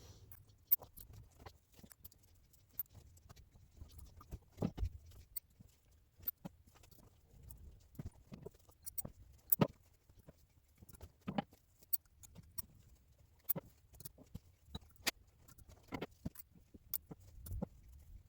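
Irregular metallic clicks and light clinks of steel valve springs, spring washers and retainers being set one by one onto the valves of a VAZ classic cylinder head.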